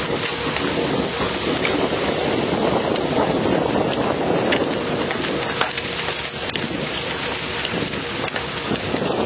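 Steady rush of wind and sea wash on the deck of a pole-and-line tuna boat, dotted with short knocks and slaps as landed tuna hit and thrash on the deck.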